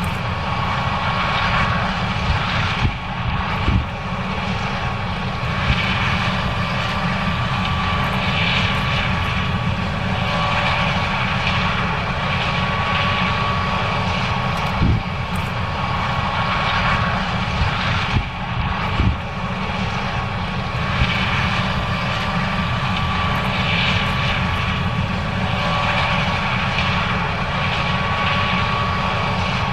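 John Deere S790 combine harvester running steadily while harvesting corn: a continuous deep engine and machinery drone with a steady high whine on top, and a few brief low knocks.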